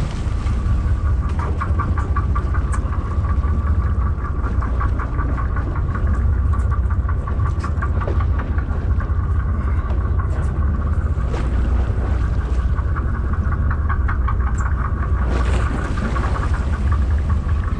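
Sportfishing boat's engines running: a steady low rumble with a fainter pulsing whine above it.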